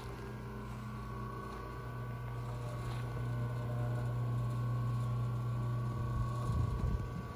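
Restored National pump jack running under its 1.5 hp TEFC electric motor, belt-driven through a 26-to-1 gearbox, a steady machine hum. About six seconds in, a rough low rumble of wind on the microphone breaks in.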